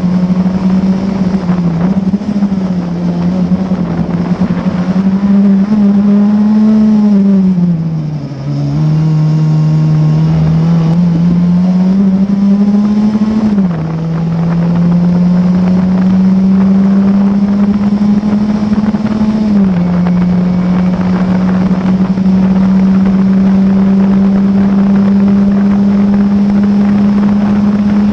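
Classic Formula Ford's Ford Kent 1600 cc four-cylinder engine at racing speed, heard from the cockpit. The engine note climbs slowly through each gear and drops sharply at upshifts about 13 and 19 seconds in. About 7 to 8 seconds in the driver lifts off briefly and the pitch falls, then the engine pulls again.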